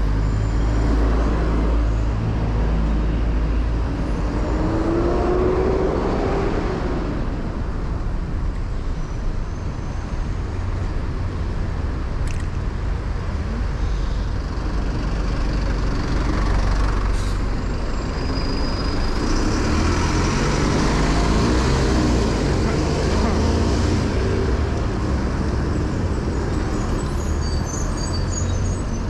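Busy street traffic heard from a moving bicycle: motor vehicles passing close by, under a steady low rumble. Engine notes swell and fade as vehicles go by, most clearly about five seconds in and again around twenty seconds in.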